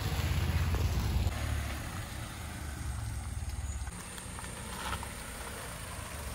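Volkswagen Polo hatchback driving slowly on a narrow road, its engine and tyres giving a low rumble that is strongest in the first second or so and then eases to a softer rumble.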